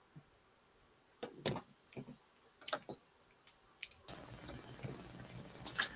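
A few scattered faint clicks and small knocks over an otherwise silent video-call line, then a faint steady hiss that comes in about four seconds in.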